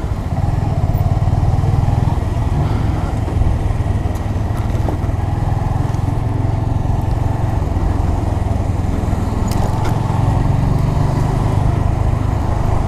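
Honda Grom's small single-cylinder engine running steadily, with a slight rise in level just after the start.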